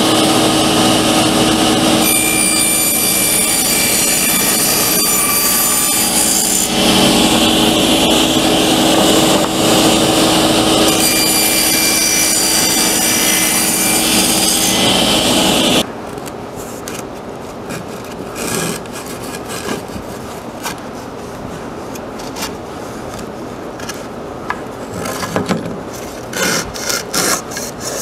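Table saw running and cutting into the sides of a small glued-up cedar box to split off its lid, the kerf stopping just short of cutting through; a higher ringing whine comes in while the blade is in the wood. The saw stops about halfway through, followed by quieter rubbing and scraping of wood on the bench.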